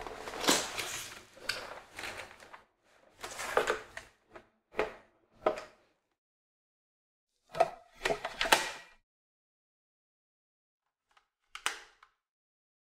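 Plastic parts of a cordless vacuum's floor dock being handled and fitted together, with cardboard packaging: rustling scrapes at first, then several short knocks and a sharp click near the end.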